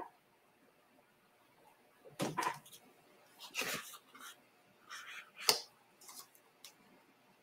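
A thin plastic silk-screen transfer and its glossy backing sheet being handled and laid down: a few short rustles and crinkles, the sharpest about five and a half seconds in.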